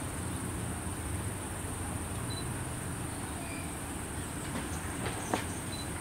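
Steady low background rumble with a thin, constant high-pitched whine over it, and a light knock a little past five seconds in.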